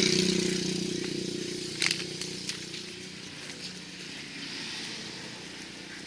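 A vehicle engine going past, loudest at the start and fading away over the first three seconds or so, with a couple of short sharp clicks about two seconds in.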